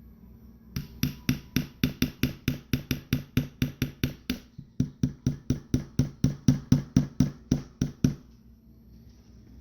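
Small hammer tapping a part into a Glock 22 pistol frame during reassembly: a rapid, even series of sharp light strikes, about four a second, with one brief pause midway, stopping near the end.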